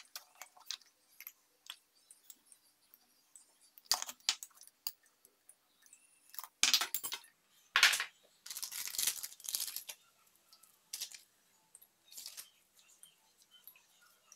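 Scattered small clinks, taps and rustles as spice jars, lids and packets are handled and spices are shaken into an aluminium pot, with a few louder rustling bursts near the middle.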